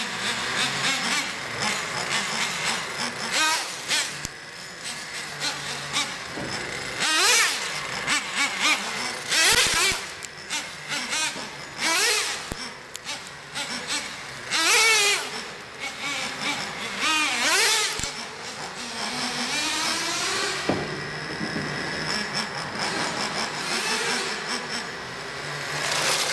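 Traxxas Slayer nitro RC truck's small TRX 3.3 glow engine revving hard several times as the truck is driven about, each rev a rising high-pitched whine, over a steady buzz of the engine.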